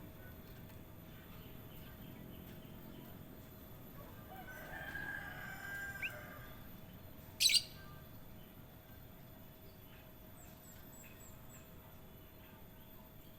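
Birds calling sparsely over a quiet background: a drawn-out call of about two seconds midway, then one loud, sharp, very brief high call, and later a quick run of five faint high chirps.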